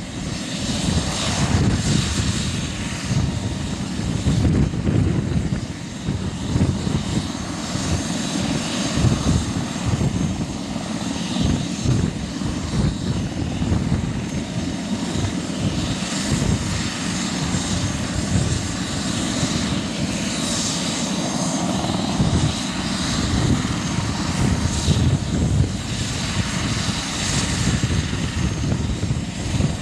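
Airbus H145 helicopter's twin turbine engines and rotors running on the ground: a steady high turbine whine over an uneven low rumble.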